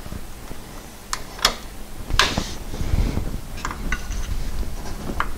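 Hand tool clinking against metal hose clamps and fittings as coolant hoses are fitted: a handful of sharp, separate metallic clicks spread over a few seconds, the loudest about two seconds in.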